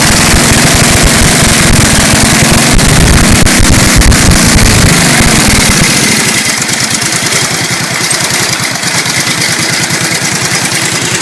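20 hp Tecumseh V-twin engine of a racing lawnmower with twin carburetors and a custom exhaust, running loud and hard, then easing off about six seconds in to a slower, quieter, even beat.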